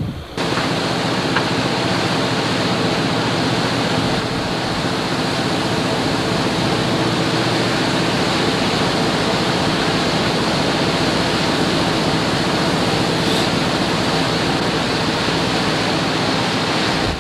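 A fishing boat's engine running steadily under a loud, even rush of wind and water noise, cutting in sharply just after the start and off sharply at the end.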